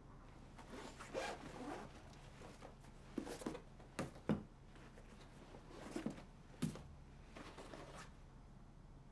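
A zipper on a black fabric bag being pulled open, with the bag's fabric rustling as hands rummage inside it, in a series of short strokes. The sharpest sounds come about four seconds in.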